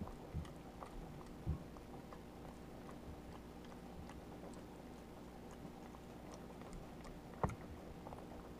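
Java macaque chewing a mouthful of pot roast, her cheek pouches packed full: faint small clicks and smacks, over a low steady hum. Soft thumps about a second and a half in and near the end.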